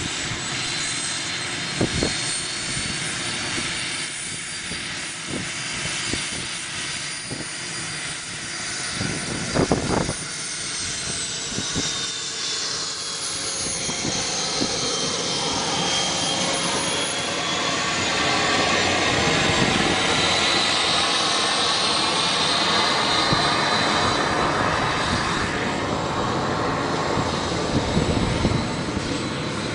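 Engine of an Airworld BAe Hawk RC model jet running with a high whine that slides down and then back up in pitch, growing louder in the second half. A few brief knocks, like wind on the microphone, cut in about two seconds in, about ten seconds in and near the end.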